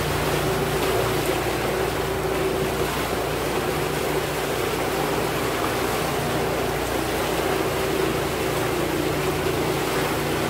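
Water rushing and splashing along the hull and outrigger floats of a boat under way through choppy water, with a steady whine from its electric outboard motor underneath.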